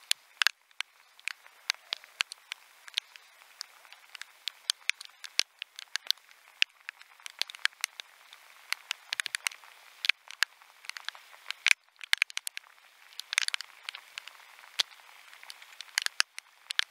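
Rain: raindrops striking the camera housing in sharp, irregular ticks, several a second, over a faint steady hiss.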